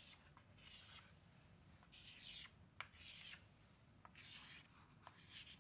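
Chalk scratching faintly on a chalkboard in about five short strokes, with a few sharp taps where the chalk strikes the board.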